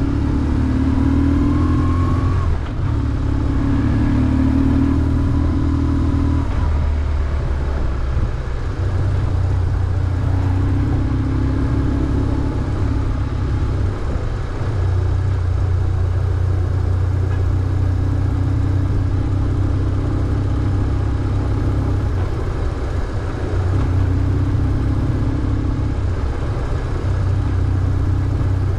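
BMW R1150GS air/oil-cooled boxer twin running under way, the throttle opening and easing off in turn, with short dips between the pulls.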